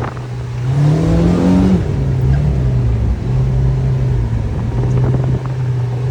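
Kawasaki Ridge XR side-by-side's inline-four engine running under way. About a second in, its pitch rises briefly as it accelerates, then it settles back to a steady drone.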